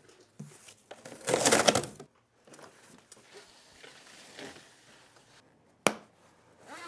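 Cardboard shipping box and foam packaging handled as a folding e-bike is lifted out: a loud scraping rustle about a second in, softer rustling after it, and a sharp knock near the end.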